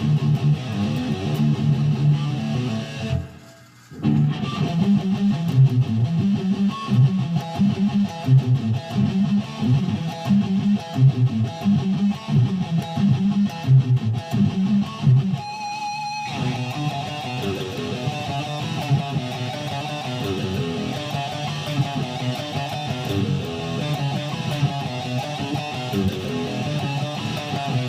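Guitar music. It breaks off briefly about three and a half seconds in, and the playing changes to a different part about halfway through.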